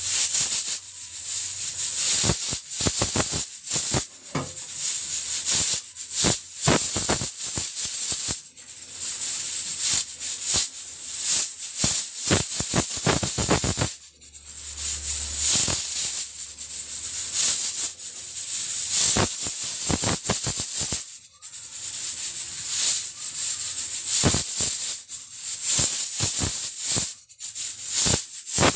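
Stovetop pressure cooker up to pressure: steam hissing out past the weighted valve, which rattles fast and unevenly, the sign that the cooker is at full pressure.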